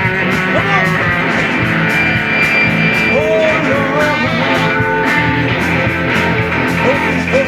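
Band music led by guitar with a steady beat, an instrumental break between sung lines. The lead line bends a few notes about halfway through.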